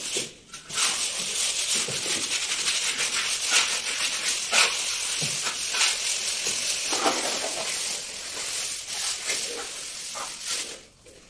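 Wooden hand float rubbing over fresh cement plaster on a wall to float it smooth, a continuous scraping hiss made of repeated overlapping strokes that eases off near the end.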